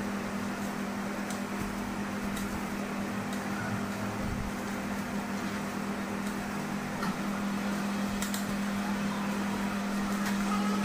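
Steady machine hum with a constant low tone and a fan-like whoosh, with a few faint clicks.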